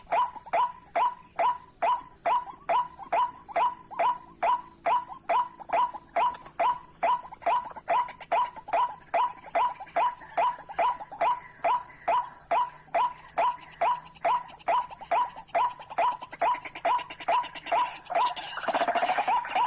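White-breasted waterhen (ruak-ruak) calls repeated very evenly, about two a second, each a short falling note. A louder rough noise joins near the end.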